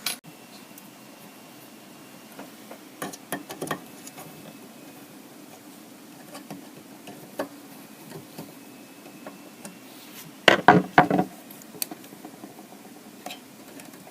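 Scattered light clicks and knocks of hard parts being handled while opening a disk drive and moving its fan brackets, with a louder cluster of knocks about ten and a half seconds in.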